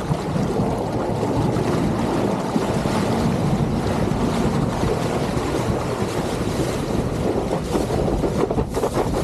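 Water rushing and splashing around an eFoil board ridden prone along the surface, throwing a spray wake, with wind buffeting the microphone. A steady, rough rush with no clear motor tone.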